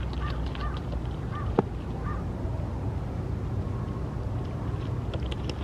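A North American beaver chewing leaves at the water's surface: soft crunching and clicks, with one sharp click about a second and a half in. Four short high calls come in the first two seconds over a steady low rumble.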